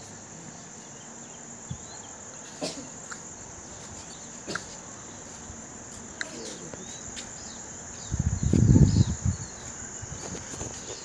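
Crickets chirring as a steady high hum, with a few short bird chirps. About eight seconds in there is a brief loud low rumble of wind buffeting the microphone.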